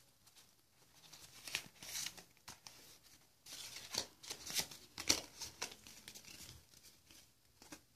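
Foil wrapper of a Pokémon card booster pack crinkling and tearing as it is opened, in scattered short bursts.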